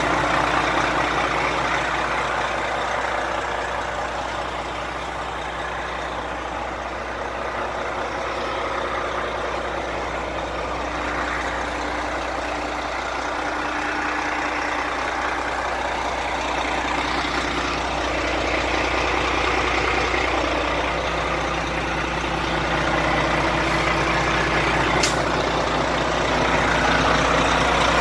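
Renault Premium 450 tractor unit's diesel engine idling steadily, growing a little louder and softer as the microphone moves around the truck.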